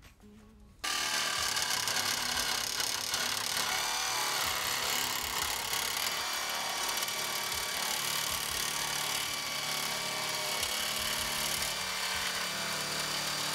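Handheld power cutting tool starting about a second in and running steadily, cutting off two marked ears on a pickup's radiator support.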